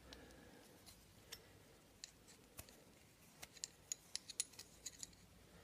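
Faint, scattered metallic clicks of 11 mm spanners and nuts being worked, as a pair of locked nuts is undone from a cylinder stud. The clicks come more often in the second half.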